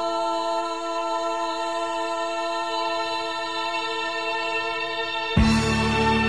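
Background music: a long held chord, joined by louder low notes just over five seconds in.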